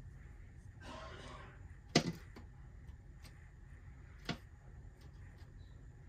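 A bird striking and pecking at the house's window: a sharp loud knock about two seconds in and a smaller one a couple of seconds later, with faint taps between and a brief rustle just before the first knock.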